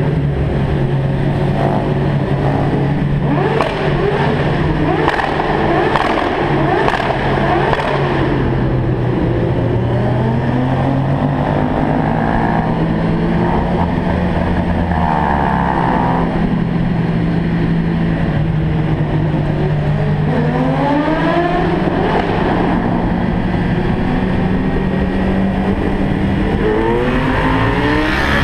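Car engine running loudly through a road tunnel, its note held steady for long stretches and rising in pitch as it revs and accelerates, about two-thirds of the way in and again near the end.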